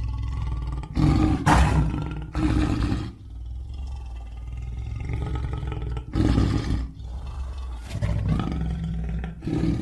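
Lion roaring: several loud roars, about a second in, near three seconds, around six seconds and again near the end, over a continuous low rumble.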